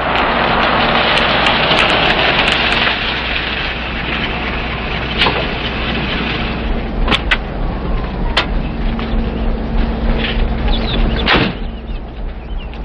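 A car on a gravel and dirt road pulling up and stopping, tyres crunching loudly for the first several seconds before the noise eases. A few sharp clicks follow, then a single knock near the end.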